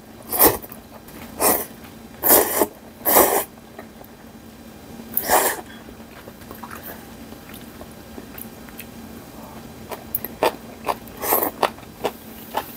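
A person slurping thin noodles from a bowl of gomtang broth: about five loud slurps in the first six seconds, then shorter, quieter slurps and small clicks near the end.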